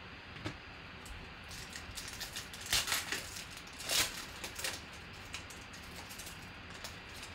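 Foil trading-card pack wrapper being torn open and crinkled by hand, in a run of crackling rips with the two loudest about three and four seconds in.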